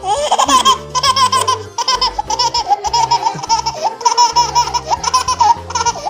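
A baby laughing hard in a long run of quick, high-pitched bursts of laughter, one after another with only brief catches of breath.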